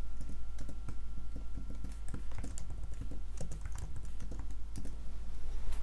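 Computer keyboard typing: quick, irregular key clicks.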